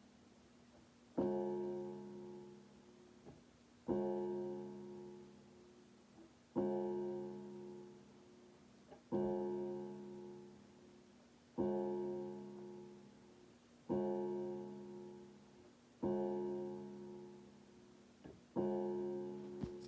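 A low piano chord struck over and over, eight times about two and a half seconds apart, each one left to ring and fade before the next.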